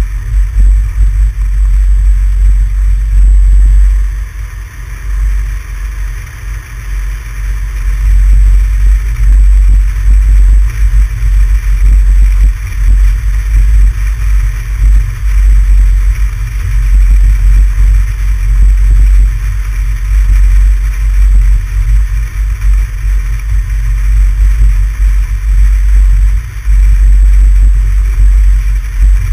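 Vehicle driving, heard from a GoPro mounted on the outside of the car: a loud, constantly fluctuating low rumble of wind buffeting the camera, with road noise underneath. It eases briefly about four to seven seconds in.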